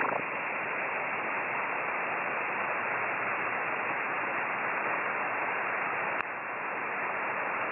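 Steady hiss of band noise from a shortwave transceiver in single-sideband mode on the 10-metre band, with no station transmitting. A single click about six seconds in, with a brief dip in the noise.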